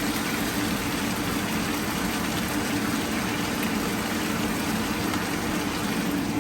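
Fish cooking in a soy-sauce sauce in a hot pan: steady sizzling and bubbling.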